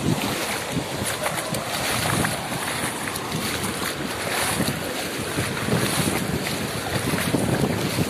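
Wind buffeting the microphone over breaking surf, with bare feet splashing through ankle-deep sea water.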